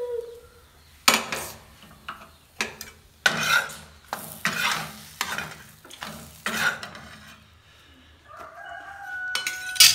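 Spatula scraping and knocking on a black iron tawa in a run of short, uneven strokes, lifting a pancake off the griddle, with one sharp knock near the end.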